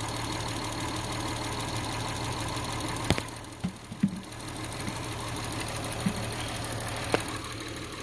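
Car engine idling steadily under the open hood, with a few sharp clicks and knocks from handling a little after three seconds in, around four seconds and near seven seconds.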